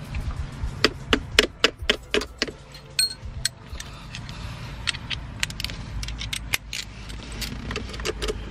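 Hand tools clinking and rattling as they are handled: a quick run of sharp metallic clinks in the first few seconds, then scattered ones as a socket is fitted onto the battery terminal clamp near the end.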